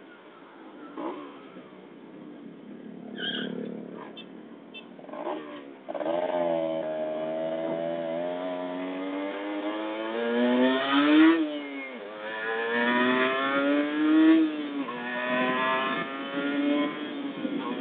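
Kawasaki Ninja motorcycle skidding briefly, then its engine accelerating hard from about six seconds in. The pitch climbs, drops sharply at a gear change, and climbs again.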